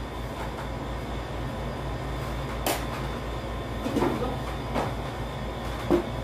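A few light clicks and knocks of people eating by hand from a shared foil tray, over a steady low hum.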